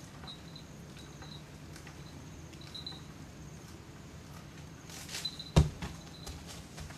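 Insects chirping in short, repeated high-pitched trills. About five and a half seconds in comes a brief burst of rustling and cracking with one sharp knock, the loudest sound, as the monkey works among the coconuts and dry palm fronds.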